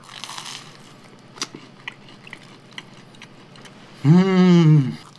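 A bite into lightly pan-toasted bread, then chewing with small soft crunches. About four seconds in comes a hummed 'mmm' of enjoyment, about a second long, rising then falling in pitch.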